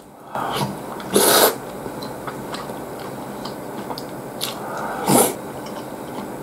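A person eating ramen at close range: quiet chewing with two short loud slurps, about a second in and again about five seconds in.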